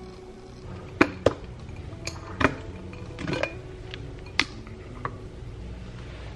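Kitchen cookware being handled: a handful of sharp clinks and knocks of pots, a glass bowl and a plastic container lid being picked up and set down, with a short rattle in the middle.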